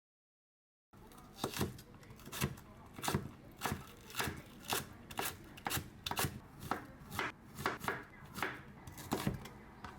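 A knife chopping food on a cutting board in slow, even strokes, about two a second, starting about a second in after dead silence.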